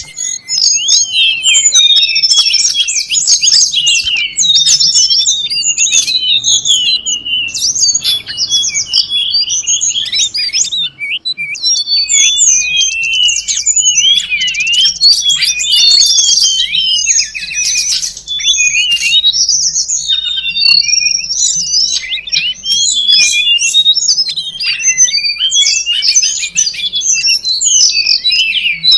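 Recorded tledekan gunung songbird lure sounds: dense, rapid, high chirps and trills, several calls overlapping with no pause.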